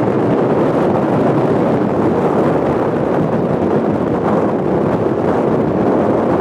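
Strong wind blowing over the camera microphone, a steady, loud rushing that does not let up.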